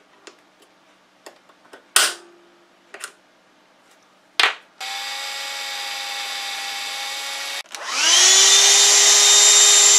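Two sharp knocks, then a power drill runs with a steady whine for about three seconds, stops briefly, and spins up again with a rising pitch to run louder, drilling a 5/16-inch starter hole through the sheet-metal enclosure.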